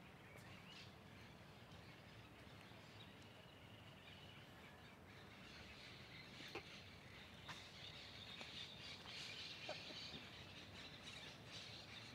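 Near silence: faint outdoor park ambience with a few faint bird chirps and soft clicks, growing a little louder in the second half.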